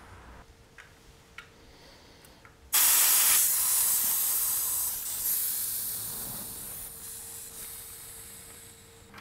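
Air hissing out of the valve of a 29-inch, 2.5-inch-wide bicycle tire as it is let down. The hiss starts suddenly about three seconds in and slowly fades as the pressure drops, after a few light clicks at the valve.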